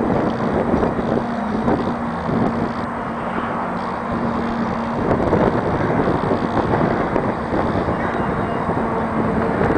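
Wind buffeting the camera microphone: a steady, uneven rush, with a faint low steady hum beneath it that drops out briefly about halfway through.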